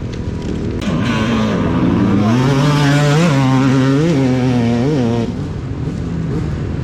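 Enduro dirt bike's engine running hard as the bike comes past: the revs climb, then rise in three quick blips about a second apart, and the sound drops away after about five seconds.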